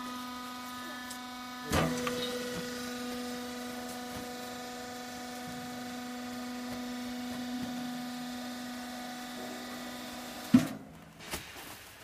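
Electric hydraulic power pack of a vertical baler running with a steady hum while the baler ejects the finished bale. There is a knock about two seconds in and a loud thump as the hum stops about ten and a half seconds in.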